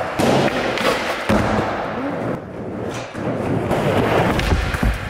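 Skateboard wheels rolling on smooth concrete, broken by several sharp clacks of the board popping and hitting the ground. A heavy landing thud comes near the end.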